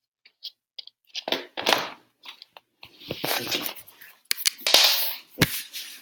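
Rustling and a string of clicks and knocks from objects being handled, with a sharp knock near the end.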